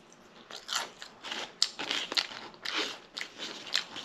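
Close-miked crunchy chewing of potato chips, the cheddar and sour cream kind, with sharp crunches two or three times a second.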